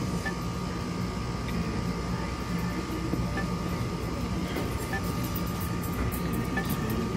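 Steady low hum of a convenience store's background noise, with a faint steady tone above it and a few faint short blips.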